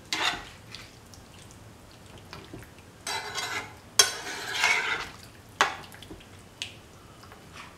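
A spoon scraping and knocking against a pan as prawns are stirred into the other ingredients: a few short strokes with quiet gaps between them, the sharpest knock about four seconds in.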